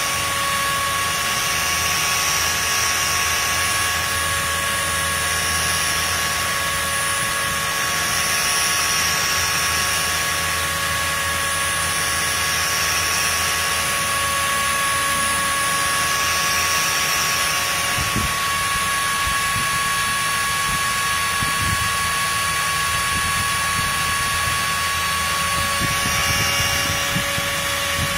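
A small CNC spindle carrying a grinding wheel runs with a steady high-pitched whine of several tones while grinding a V-bit tip. A hiss swells and fades every two to four seconds as the wheel passes over the bit, and some low crackling comes in during the second half.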